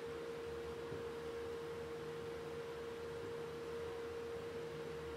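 Steady, unwavering electrical whine from the DC welder powering the electrolytic etch, with a fainter low hum beneath it.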